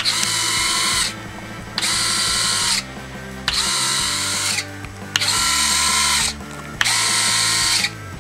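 Inexpensive Nitro Planes electric landing-gear retracts on a quadcopter whirring as the legs swing up and down, cycled by a switch: about six runs of roughly a second each with short pauses between.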